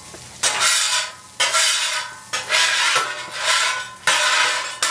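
Steel spatulas scraping across the hot steel top of a Blackstone griddle, clearing off grease and burnt bits. The strokes come in about five times, roughly one a second, each starting sharply and fading.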